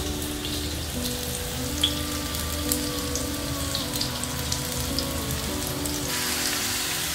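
Sliced onions and garlic sizzling in hot oil in a wok: a steady frying hiss with scattered sharp pops of spattering oil, growing brighter about six seconds in.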